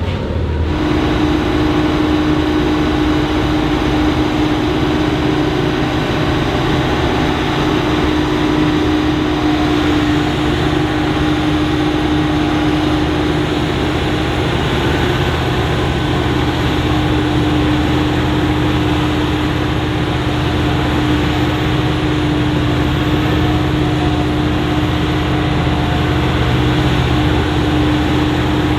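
Krone BiG X 780 self-propelled forage harvester chopping maize, its engine running under load with a steady high hum from the chopping and blowing gear.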